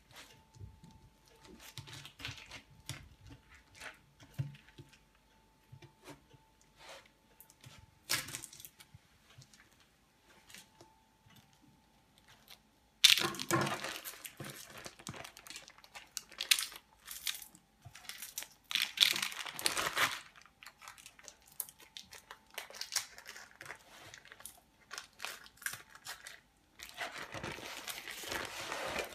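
Baking parchment crinkling and tearing as it is peeled by hand off a sponge roll that is being rolled up, the paper sticking to the cake. Faint scattered rustles at first, then louder crackling bursts about halfway through, again a little later, and near the end.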